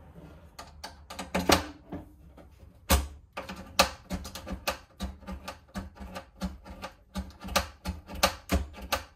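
A guitar cable's quarter-inch plug being pushed in and pulled out of an amplifier's input jack over and over: an irregular run of sharp clicks, several a second. This works contact cleaner into the jack to clean the contacts.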